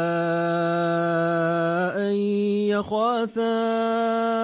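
A man's voice chanting Quran recitation, drawing out long, steady melodic notes. The pitch steps up once about two seconds in, with a brief break and waver about three seconds in.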